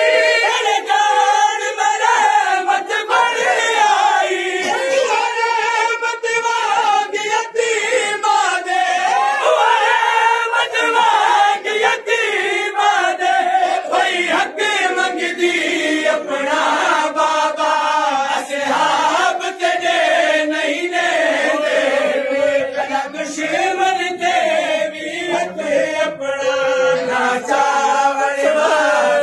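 Men chanting a Saraiki noha, a Shia mourning lament. A lead reciter's voice is carried on a microphone, with other male voices chanting along.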